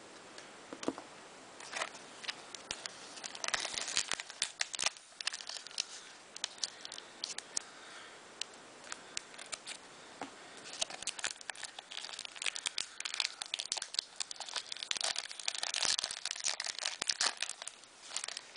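Crinkling and tearing of a trading-card pack's wrapper being opened by hand, in two spells of dense crackling, with cards being handled and laid on a table.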